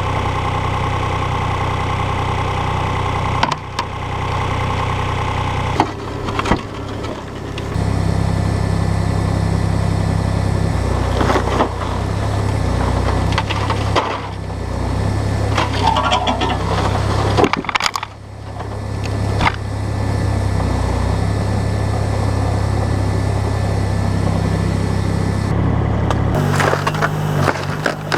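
A machine engine runs steadily under the work, with intermittent cracking and scraping of frozen ice.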